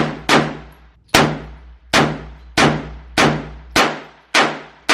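A rapid series of about eight gunshots, one every half second or so, each sharp crack trailing off in a short ringing echo.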